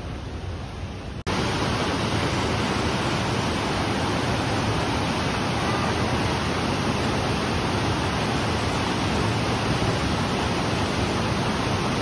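Waterfall falling into a pool, a steady rush of water. It cuts in abruptly about a second in, after a fainter stretch of the same kind of noise.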